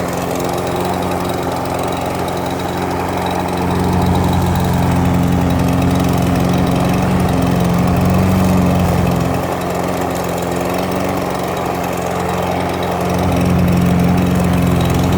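Troy-Bilt walk-behind lawn mower's single-cylinder Briggs & Stratton 550EX engine running steadily and loud, its sound swelling louder for a few seconds about four seconds in and again near the end.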